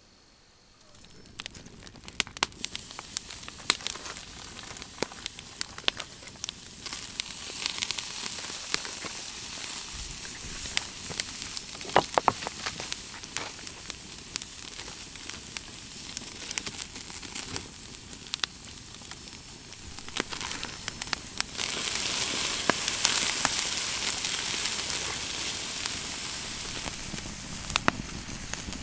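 Steaks sizzling on a grill grate over a wood campfire, with the fire crackling in many sharp pops and snaps. The sizzle grows louder about two-thirds of the way through.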